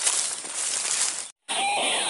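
Loud rustling of leaves and brush close to the microphone for about a second. After an abrupt cut, repeated calls of a white-breasted waterhen (ruak-ruak) begin near the end.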